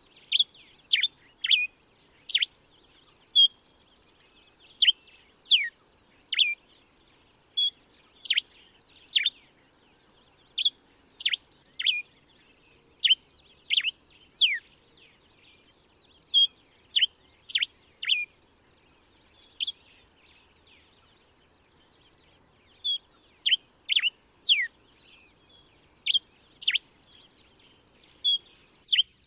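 Common diuca finch (Diuca diuca) singing. It repeats phrases of sharp, quickly falling whistled notes mixed with short chirps, and each phrase carries a brief buzzy trill, with short pauses between phrases.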